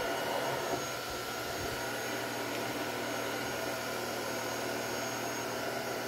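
Oraimo Ultra Cleaner S cordless stick vacuum running steadily: a rush of air with a steady high motor whine.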